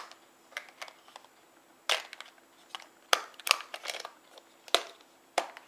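Irregular sharp clicks and knocks of a small metal K98 rifle cleaning kit tin being handled and turned over in the hands, about eight or nine separate taps with no rhythm.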